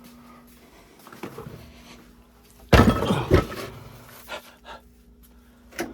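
A heavy car battery being handled and set down: a loud scuffing thud about three seconds in, then a few lighter knocks, over a faint steady hum.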